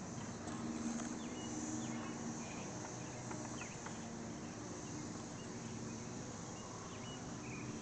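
Cicada chorus: a steady high buzz that swells and fades, with short bird chirps over it and a low steady hum underneath.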